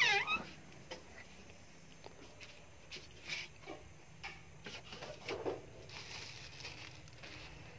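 Quiet room tone with a few soft knocks and rustles of items and plastic packaging being handled in a cupboard, about three seconds in and again about five seconds in.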